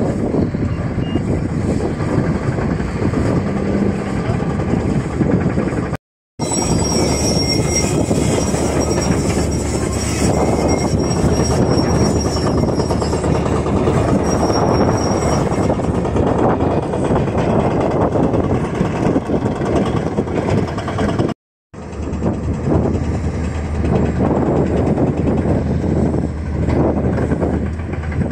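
Diesel engines of heavy earthmoving machines, a wheel loader and a Komatsu PC200 tracked excavator, running under load, with a steady low drone beneath a rough, gusty rumble that fits wind on the microphone. The sound drops out completely twice, briefly each time.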